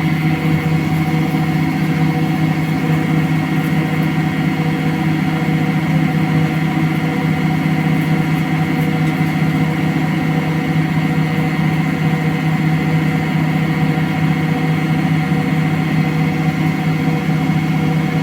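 Electrolux CompassPRO WH6-27 27 kg commercial washer spinning a duvet in its drum: a steady mechanical hum with a constant motor whine and no change in speed.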